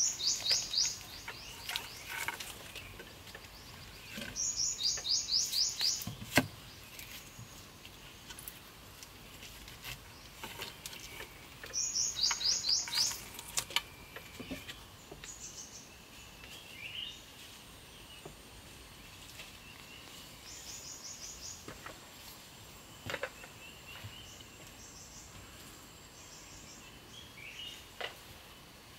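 A small bird singing high, rapid trills of about a second each, repeated several times with pauses between them, over quiet forest background. A few sharp knocks, the loudest about six seconds in.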